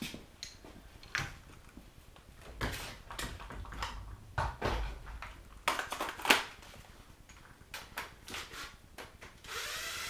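Irregular metallic clinks and knocks of tools and loose engine parts being handled on a V8 block during teardown, the loudest knock a little past the middle, with a short rushing noise near the end.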